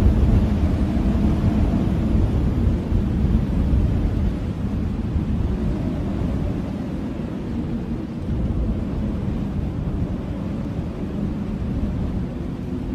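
Blizzard wind blowing in a deep, steady rumble, loudest at the start and slowly easing off.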